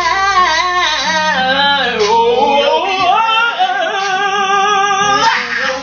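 A woman singing wordless, wavering vocal runs over a backing track with a steady bass, ending in a long held note about five seconds in.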